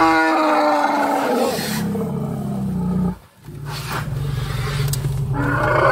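Wild Asian elephants trumpeting in an aggressive display toward a vehicle. One long call falls slightly in pitch over the first two seconds, and a shorter call follows near the end, over a low steady engine hum.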